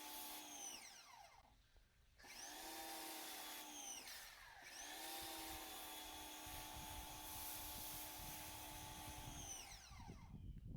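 Ryobi 1900 PSI electric pressure washer's motor running with a steady whine while spraying soap foam through a foam cannon. It spins down to a stop about a second in, starts up again, dips briefly around four seconds in, then runs until it winds down near the end.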